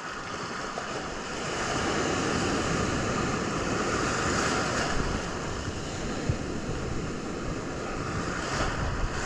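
Ocean surf washing on a beach, a steady rushing noise that swells about two seconds in and eases off after the middle, with wind on the microphone.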